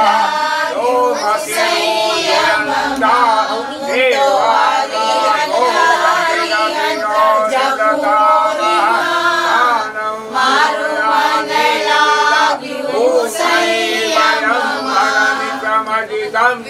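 A group of people singing a song together, the voices overlapping continuously.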